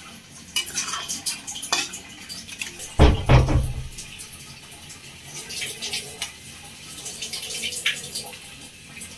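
Thin pea curry boiling in a wok, popping and spluttering in many small irregular bursts. One loud thump about three seconds in stands out above the bubbling.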